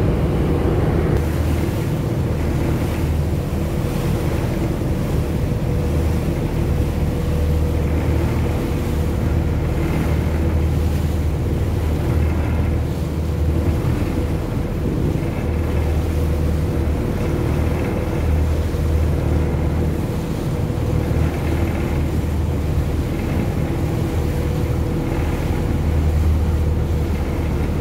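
Passenger boat's engine running steadily under way with a low drone, with water rushing past the hull and wind on the microphone.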